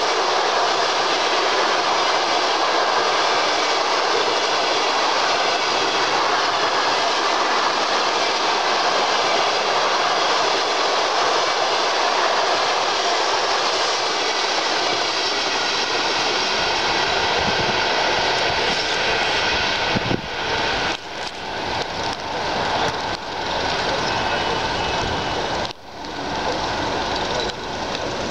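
Passenger train coaches rolling past on the track close by, a steady rushing rumble of wheels on rails. In the last several seconds the noise turns uneven, rising and dipping, as the end of the train goes by.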